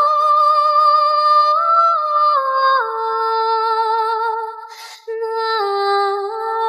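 A woman's voice singing a wordless melody in long held notes that step up and down in pitch, as a music track. About five seconds in, the voice breaks off briefly with a short hiss.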